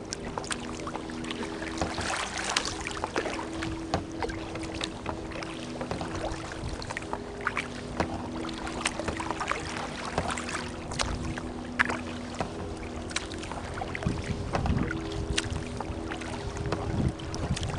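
Water lapping and splashing against a kayak's hull as it moves across choppy water, with a steady low hum underneath. Wind rumbles on the microphone a few times in the second half.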